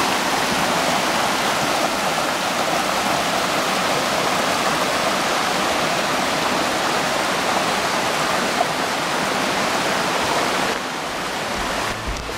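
Shallow forest creek running and splashing over fallen logs: a steady rush of water. Near the end the rush drops and low bass notes of a music track come in.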